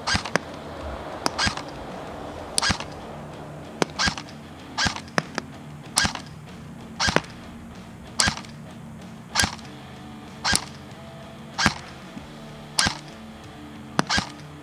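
LCT AK-12 airsoft electric gun firing single shots on semi-auto, one about every second, about a dozen in all.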